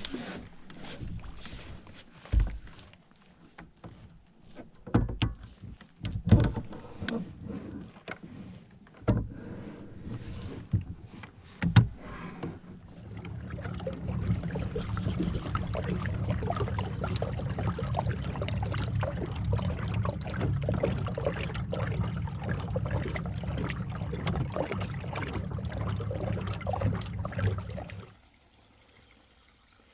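Scattered knocks and clunks as gear and the john boat are handled. Then the boat's small motor runs steadily for about fifteen seconds under way, cutting off abruptly near the end as the boat reaches the bank.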